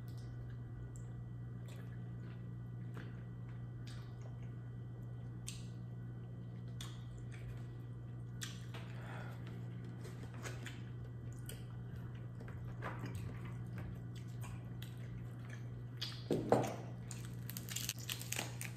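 Close-up eating sounds: chewing, wet squishing and small clicks as crab meat is picked from the shells, over a steady low hum. Near the end come a few louder snaps and cracks as king crab legs are broken apart.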